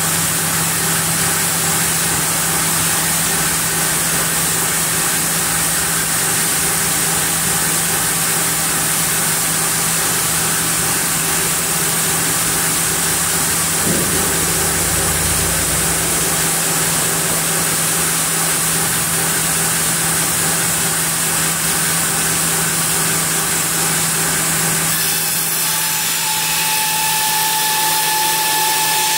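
Large sawmill band saw running steadily, with a knock and a short low rumble midway. Near the end the sound changes and a whining tone comes in.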